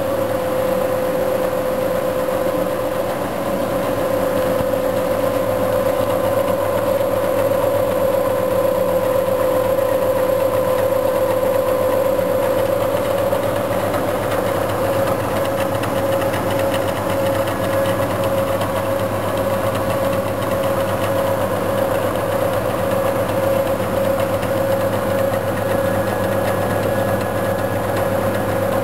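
1995 Bridgeport V2XT CNC vertical machining center running under power: a steady mechanical hum with a constant mid-pitched whine over it.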